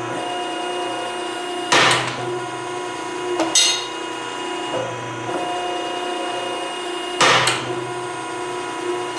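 Hydraulic ironworker running with a steady hum while punching holes in steel plate, with three loud punch strokes about two, three and a half, and seven seconds in.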